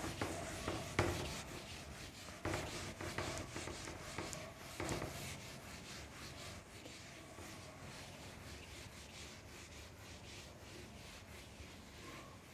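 Whiteboard eraser rubbing across a whiteboard, wiping off marker writing in quick repeated strokes, firmer in the first few seconds and lighter after.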